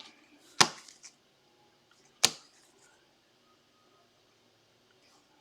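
Two sharp clacks about a second and a half apart, with a couple of faint ticks between them: trading cards being handled and set down on a table.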